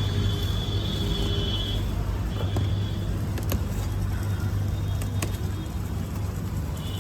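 A vehicle engine running at a steady speed, a continuous low hum, with a thin high tone heard twice in the first three seconds.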